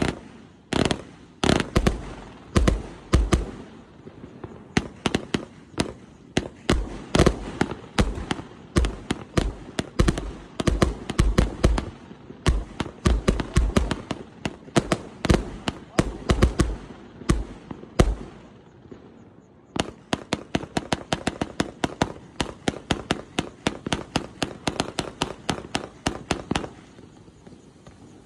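A 168-shot, 1.2-inch fireworks cake firing: a rapid string of launch thumps and shell bursts, several a second. After a short pause about eighteen seconds in comes a quicker, evenly spaced run of lighter pops, which dies away shortly before the end.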